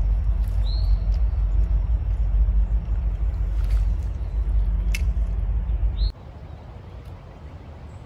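A loud low rumble that cuts off abruptly about six seconds in, with two short high bird chirps and a couple of faint clicks over it.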